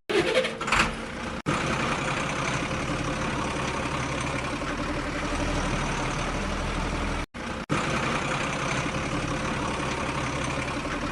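A vehicle engine running steadily at idle, a low even hum. It cuts out abruptly for an instant about a second and a half in and again for about half a second around seven seconds in.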